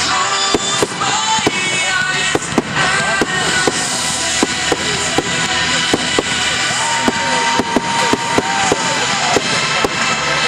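Fireworks going off: a steady run of many sharp bangs and crackles, with music playing along.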